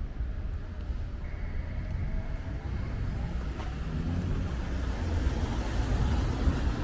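A car driving past close by on a city street, its engine and tyre noise growing louder late on, over a steady low traffic rumble.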